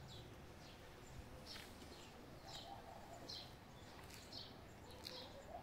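Faint bird chirps repeating about once a second, each a short high note, over quiet background hiss.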